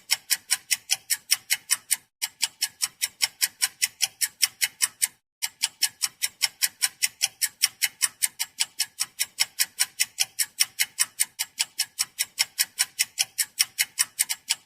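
Wall clock ticking sound effect: a fast, even run of sharp ticks, about five a second, broken by two brief gaps about two and five seconds in.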